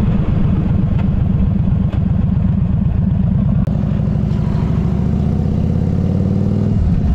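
Motorcycle engine running steadily at low revs with a rapid low firing pulse. Its note climbs a little over the last few seconds.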